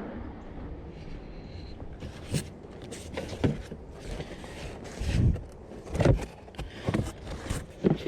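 Curbside trash being rummaged through and moved: a string of knocks, clunks and rustles, the loudest about five and six seconds in, over a steady low rumble.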